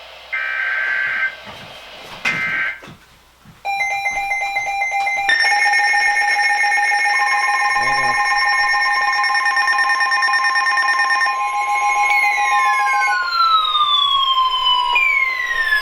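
Emergency Alert System tones opening a new alert: two short data bursts, then a chord of steady electronic alert tones that starts about four seconds in and gets louder a second later. Near the end it is joined by repeated downward-sweeping tones.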